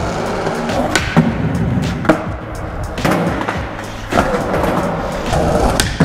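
Skateboard wheels rolling over smooth concrete, with several sharp knocks of the board and wheels hitting the ground.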